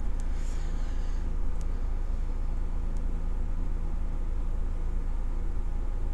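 Steady low background hum throughout, with a faint brief rustle in the first second and a few light clicks in the first few seconds.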